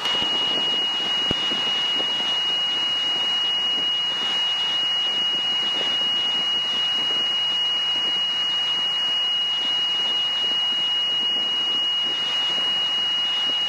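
Steady high-pitched warning tone, held without a break, over the constant rotor and airframe noise inside a Robinson helicopter's cabin during a practice autorotation glide.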